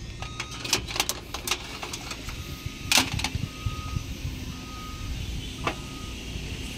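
Scattered metallic clicks and knocks from hands-on work on a car, the loudest about three seconds in, while a short high electronic beep repeats at intervals.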